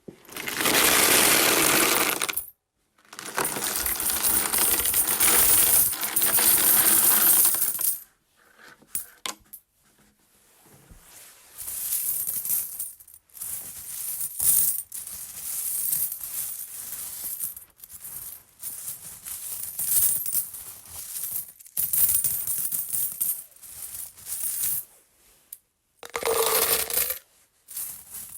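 A run of coin sound effects. In the first eight seconds there are two long stretches of coins jingling and clinking together, split by a short gap. After that comes a series of shorter coin clinks, drops and jingles, each set apart by a brief pause.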